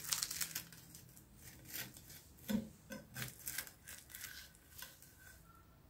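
Metal blade scraping along a baking tray as it is worked under a baked puff pastry pizza, with the crisp pastry crackling. It comes as a string of short, irregular scrapes and crackles.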